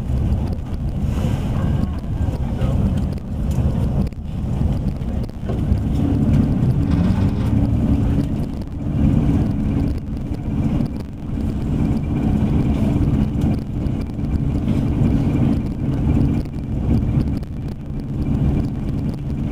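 Electric passenger train running at speed, heard from inside the car: a steady rumble of wheels on rail, with a low steady hum setting in about six seconds in.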